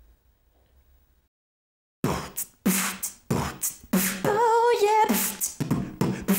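Human beatboxing: after about two seconds of near silence, a fast run of percussive mouth sounds starts, with a wavering pitched vocal tone a little past the middle.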